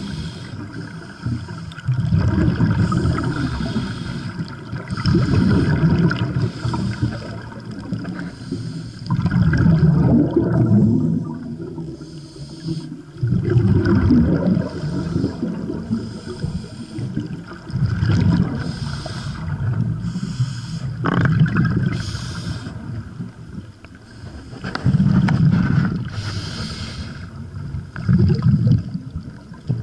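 Scuba divers' regulator breathing recorded underwater: rumbling bursts of exhaled air bubbles every three to four seconds, with quieter stretches between breaths.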